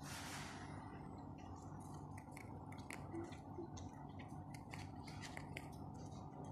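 Young rabbit chewing a green leaf: faint, quick, irregular crisp clicks of its teeth cutting and grinding, several a second.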